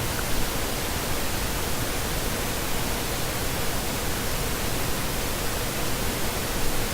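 Steady background hiss with a faint, constant hum underneath; no other sound.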